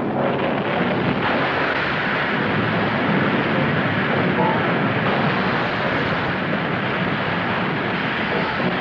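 Continuous loud roar of rumbling eruptions and explosions, a television sound effect for a planet tearing itself apart. It stays steady throughout, with no single sharp blast standing out.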